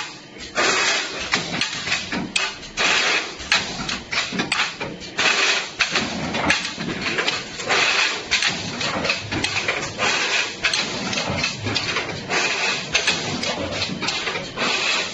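Automatic square tin can making line running: a dense, irregular clatter of metal clanks and knocks over a steady machine noise.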